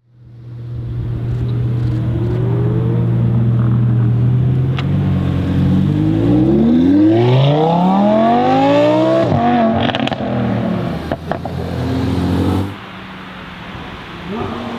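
Audi R8 V10 Performance's naturally aspirated V10 with an aftermarket exhaust, running at a steady low speed, then accelerating hard with revs climbing for a couple of seconds before they drop suddenly. A few sharp exhaust cracks follow, and the engine sound falls off abruptly near the end.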